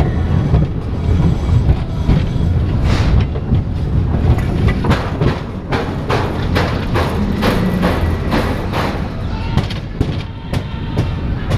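Mine-train roller coaster car rolling on its steel track: a steady low rumble, with a run of quick clattering knocks from the wheels through the middle.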